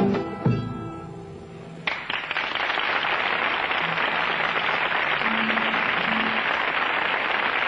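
An Andean folk group's song ends on a final struck chord that rings out and fades. About two seconds in, a studio audience breaks into applause, which goes on steadily.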